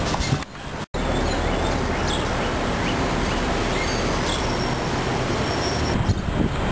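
Outdoor ambient noise: a steady low rumble and hiss, with a few faint high chirps from birds. The sound cuts out briefly just under a second in.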